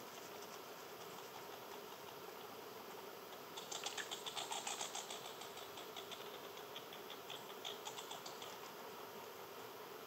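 A red squirrel on a seed-covered tree stump makes rapid clicking and scratching, in a run of about a second and a half a third of the way in and a shorter one near the end, over a steady background of insects.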